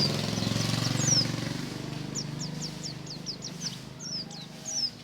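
Pleci (white-eye) birds chirping in short, quick, falling notes, several in a row, over the low pulsing drone of an engine that fades over the first few seconds.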